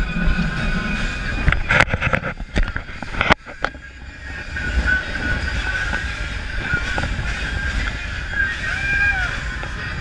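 Fishing boat running fast over open water: steady rush of wind and water with the engine underneath. A cluster of sharp knocks comes about two seconds in, then a brief dip before the running noise settles back.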